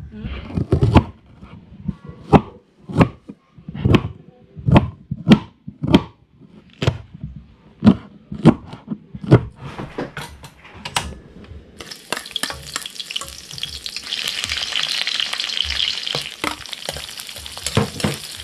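A run of sharp, irregular knocks, roughly one or two a second, for the first ten seconds or so. About twelve seconds in, a loud sizzle starts suddenly as chilies, shallots, ginger and garlic hit hot oil in a steel wok, with a spatula scraping and stirring them.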